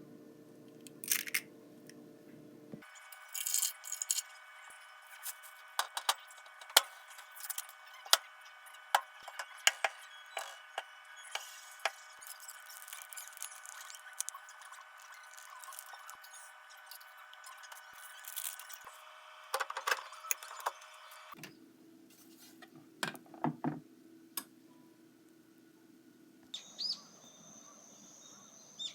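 Scattered sharp clicks, knocks and clinks of dishes and kitchen utensils being handled during food preparation, a few seconds apart.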